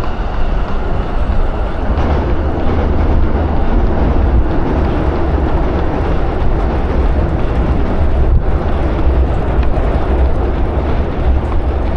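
Steady, loud wind rumble buffeting an action camera's microphone while running.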